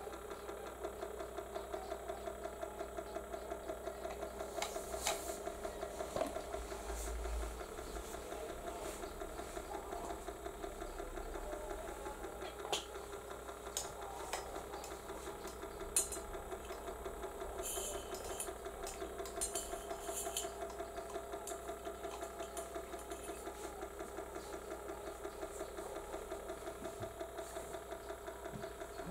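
Small electric motor of a rotating display turntable running steadily, with an even, pulsing hum and a few faint clicks.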